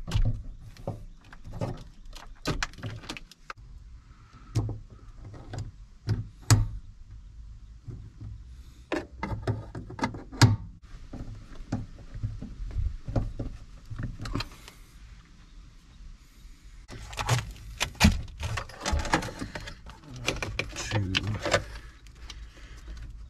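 Irregular small clicks, taps and rustling from hands handling tools, wiring and fuel-pump hatch parts, over a steady low hum.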